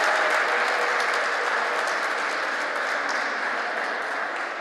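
Applause in a sports hall, many hands clapping, slowly fading away.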